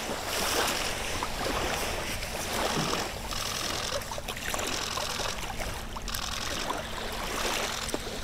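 Small waves lapping and washing on a sandy shore, a steady splashing wash without a break.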